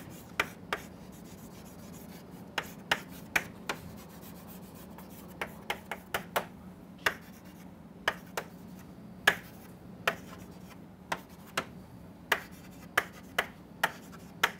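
Chalk on a blackboard: a string of sharp, irregular taps and short scrapes as a diagram is drawn stroke by stroke. A faint steady low hum runs underneath.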